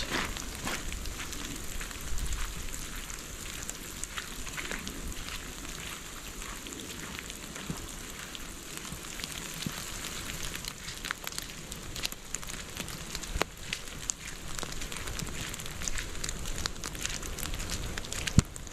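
Rain falling on wet snow and leaf litter: a steady hiss with many single drops ticking sharply.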